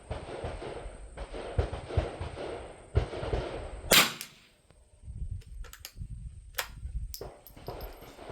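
A single shot from a Winchester Model 52 .22 rimfire target rifle, sharp and loud, about four seconds in, after a few seconds of steady rushing noise. A few light clicks follow it.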